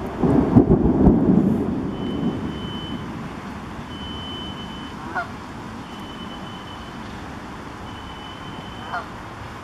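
A rumble of thunder, loudest about half a second in and dying away over a second or so, over a steady wash of wind and waves. Canada geese honk once about five seconds in and again near the end, and a faint high beep repeats about every two seconds.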